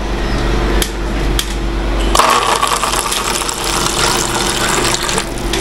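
Push-button water dispenser running water into a small paper cup, starting about two seconds in and stopping about three seconds later; the water flows only while the button is held down. A couple of short clicks come just before the pour.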